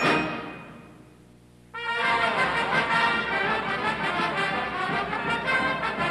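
A marching band's brass section and sousaphones playing: a loud chord dies away to a faint low note, then after about a second's pause the full band comes back in sharply and plays on.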